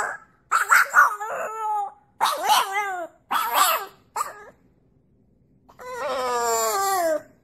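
French bulldog howling: four short howls in the first four seconds, then one long howl that falls in pitch near the end.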